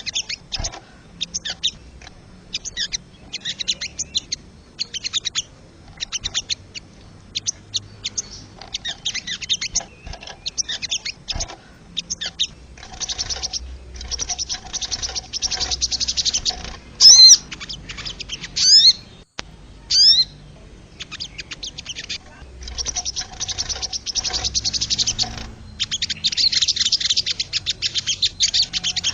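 Wild sogon birds calling in quick rattling trains of high chirps, almost without pause. Two-thirds of the way through come a few very loud, sharp whistled glides.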